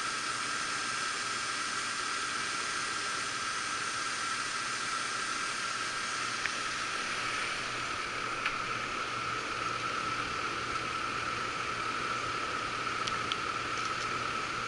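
Steady rushing hiss of a running air handler's blower and airflow, with a constant high whine through it and a few faint clicks.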